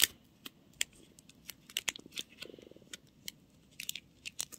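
Roll of clear sticky tape being handled and peeled: scattered sharp clicks and crackles, with a short buzzing rasp about two and a half seconds in as tape pulls off the roll.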